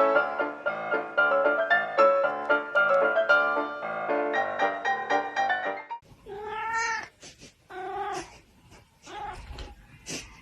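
Piano music plays, then about six seconds in it cuts to a cat meowing: three drawn-out meows that bend in pitch, with short sharp noises between them.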